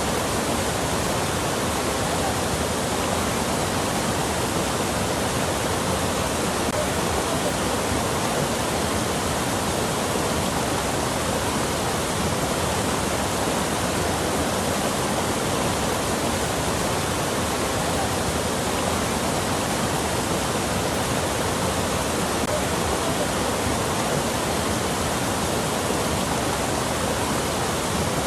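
Steady rushing water, a constant even wash with no change over the whole stretch.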